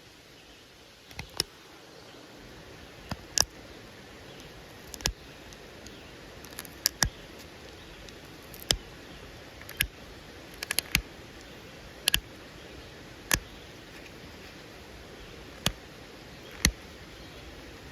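Antler pressure flaker popping small flakes off a quartzite point: sharp single clicks, a dozen or so at irregular intervals, some in quick pairs or clusters.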